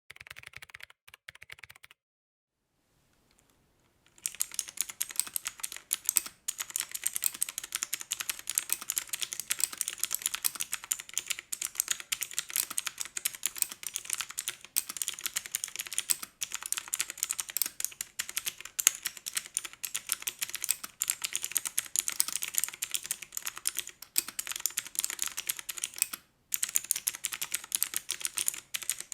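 Typing on a BAJEAL K100 mechanical keyboard with clicky blue switches. A few keystrokes, a pause of about two seconds, then fast continuous typing with a couple of brief breaks.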